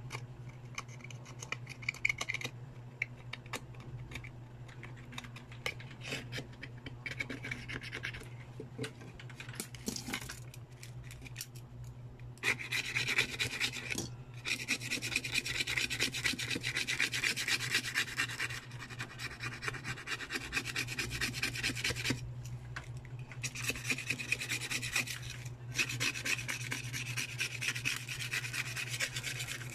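A small hand tool scraping and rubbing quick, repeated strokes over a water-damaged phone's display assembly, working off the corrosion residue. It grows louder about twelve seconds in, over a steady low hum.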